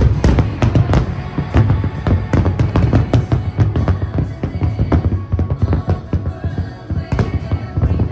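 Large fireworks display: a rapid string of bangs and crackling bursts, densest in the first few seconds and thinning toward the end, with music playing underneath.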